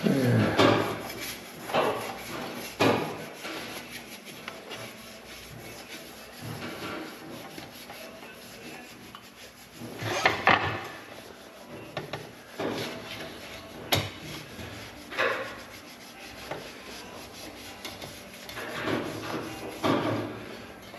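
Hand polishing of a 1964 Chevelle grille: rubbing strokes against the metal come in scattered spells, heaviest about ten seconds in and again near the end, with one sharp tap about fourteen seconds in. The rubbing brings the dull grille up to a shine.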